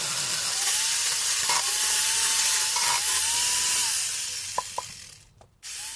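Angle grinder fitted with a saw-chain attachment running and cutting wood, a steady hissing cut over a wavering motor whine, dying away about four to five seconds in. A short loud burst of noise comes near the end.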